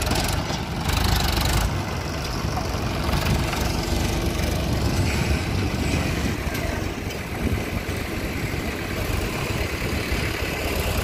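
Sonalika DI 745 tractor's diesel engine running steadily as it pulls a trolley loaded with soil.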